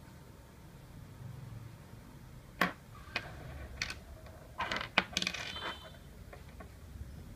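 Solid brass fidget spinner parts, the screw-on arms and bearing cap discs, clinking as they are set down on a wooden table and knock against each other. About six sharp metallic clinks come in the second half, one of them ringing briefly.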